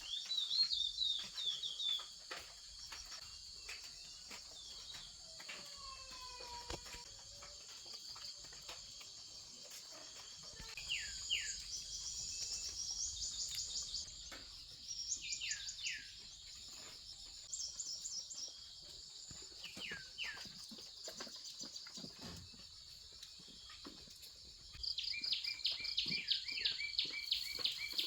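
Steady high-pitched insect chorus with birds calling over it: a few short down-slurred calls through the middle, then a fast, loud pulsed chirping that starts near the end.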